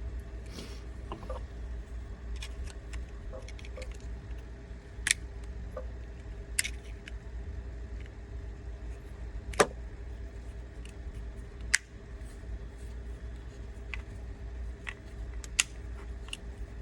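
Sharp clicks and taps of a tool and small metal parts, about half a dozen spread irregularly, as the magazine catch and its spring are worked into a KWA Masada rifle's mechanism block. A steady low hum runs underneath.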